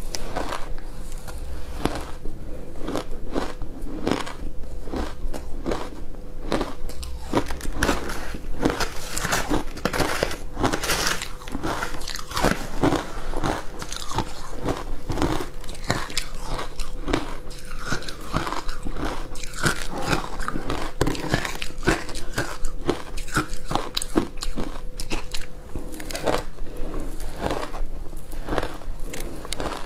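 Ice coated with milk powder being bitten and chewed: a continuous run of sharp, irregular crunches, several a second.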